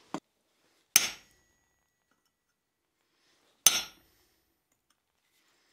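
A faint knock right at the start, then two single hammer blows on steel, about a second in and again nearly three seconds later. Each is a sharp clank with a short metallic ring, struck on a punch set on a hot steel disc at the anvil.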